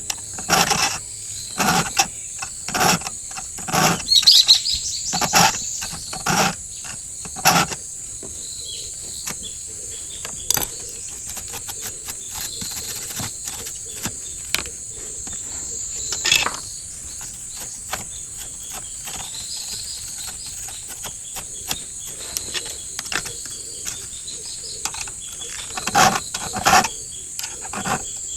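A round file being stroked across the cutters of a chainsaw chain to sharpen them: short strokes about one a second, a lull in the middle, and a few more strokes near the end. A steady high-pitched tone runs underneath.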